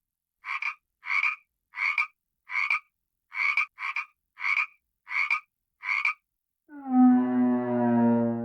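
An animal's short calls repeated nine times at an even pace, about one and a half a second, followed near the end by a long, steady, low-pitched tone.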